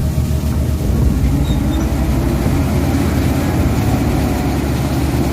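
Heavy construction machine's engine running steadily, a low drone with no hammer blows, growing a little fuller about a second in.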